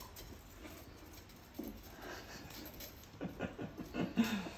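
A man's soft, breathy chuckling, in short bursts that grow louder near the end.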